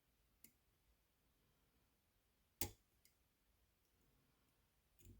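Near silence broken by a few isolated metal clicks of a lock pick and tensioner working the pins of a small Baton dimple camlock under very light tension; the loudest, sharpest click comes about two and a half seconds in, with a soft knock near the end.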